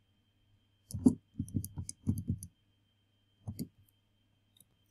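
Plastic keys of a Texas Instruments TI-30X IIS scientific calculator being pressed: a quick run of about eight clicks, then one more click about a second later.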